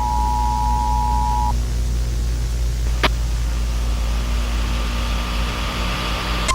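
Emergency Alert System two-tone attention signal, two steady tones sounding together, cutting off about a second and a half in. A steady low rumble and hiss carries on under it, with a click about halfway through, and a rising static hiss in the last couple of seconds ending on another click.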